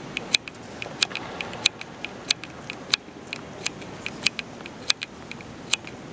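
Sharp clicks repeating about every two-thirds of a second, with fainter clicks in between, over a steady background hum.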